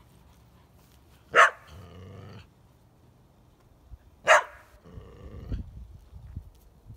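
A dog barks sharply twice, about three seconds apart, each bark followed by a short wavering growl.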